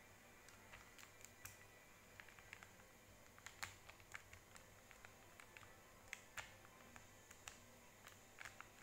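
Near silence with faint, irregular small clicks and taps, a dozen or so scattered through, over a low steady hum.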